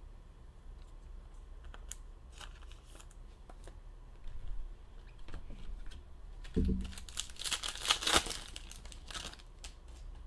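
Foil card-pack wrapper crinkling and tearing as a pack is opened, with scattered small clicks of cards being handled. The loudest stretch is a dense crinkle about eight seconds in, just after a soft thump.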